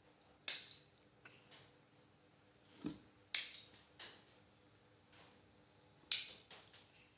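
Scissors snipping through a disposable diaper's crinkly plastic: three sharp snips spread a few seconds apart, with a duller bump just before the second.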